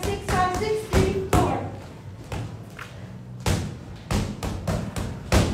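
Boxing gloves punching a free-standing heavy bag: a dozen or so thuds thrown in quick, uneven combinations.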